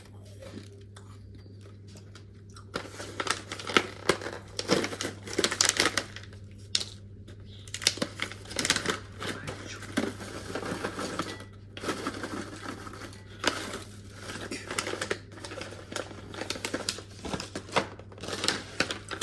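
Plastic packets of freeze-dried fruit crinkling as they are handled, in dense crackly bursts with short pauses, starting about three seconds in. A faint steady hum sits underneath.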